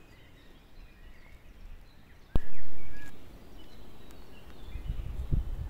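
Small birds chirping on and off, faintly. About two and a half seconds in there is a sharp click followed by a short, loud low rumble that fades within a second, and irregular low rumbling comes in near the end.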